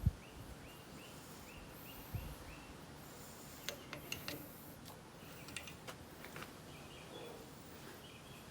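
Light handling noises of small metal parts: a low thump at the start, another about two seconds in, then scattered sharp clicks. A run of short, high chirps repeats about three times a second over the first couple of seconds.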